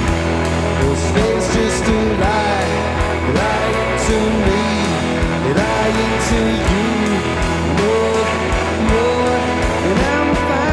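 Rock band playing: drums keep a regular beat under a steady bass, while a lead line slides and bends between notes.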